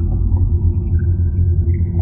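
Ambient dronescape sound effect: a loud, steady low rumbling drone, with short faint high tones drifting in and out above it.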